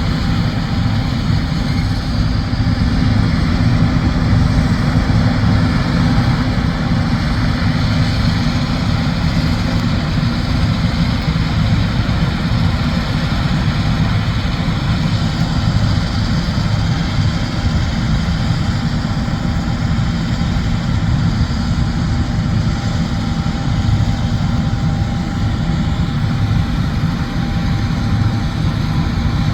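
John Deere S780 combine harvester running steadily at work, a continuous heavy diesel engine and machinery drone with no let-up.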